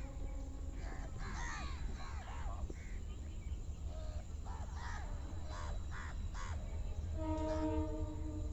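Crows cawing repeatedly, a run of short harsh calls, over a steady low rumble. Near the end a steady pitched tone is held for about a second.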